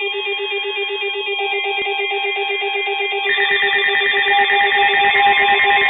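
Several weather alert radios sounding their alarms at once after receiving a coded alert: layered electronic beeping and warbling tones, with another alarm joining about three seconds in and the whole getting louder.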